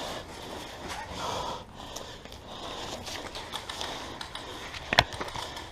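A player's breathing and rustling movement close to the microphone, with one sharp click about five seconds in.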